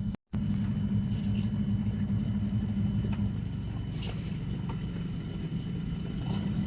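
A steady low hum with a faint high whine over it, cutting out completely for a moment just after the start, with a few faint ticks.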